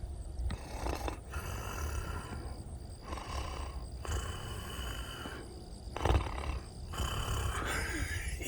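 Mock snoring: a run of rasping breaths in and out, each about a second long with short gaps, the loudest about six seconds in, jokingly passed off as a snoring moth.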